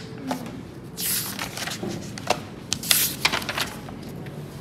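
Pages of a hardcover book being leafed through: paper rustling, with two louder page-turn swishes about a second in and near three seconds, and a few short clicks.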